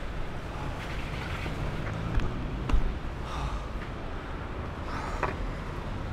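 Longboard wheels rolling over paving slabs: a steady low rumble, with two sharp clacks between two and three seconds in as the wheels go over joints in the pavement. Street traffic sounds faintly behind it.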